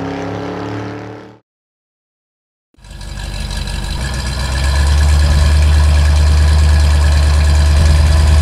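A car engine sound effect fades away in the first second and a half, then after a second of silence a deep engine idling sound fades in and runs steadily.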